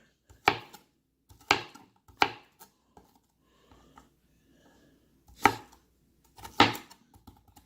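Santoku kitchen knife chopping onion: a run of separate sharp knocks at uneven spacing, about a second apart, with the strongest strokes in the second half.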